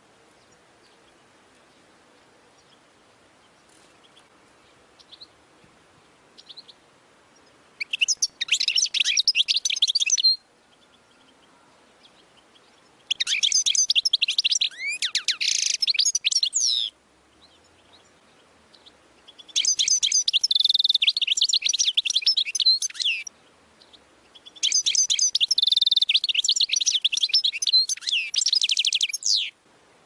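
European goldfinch singing in four phrases of rapid, high twittering with trills, each a few seconds long with short pauses between. The first phrase starts about eight seconds in, after a few faint chirps.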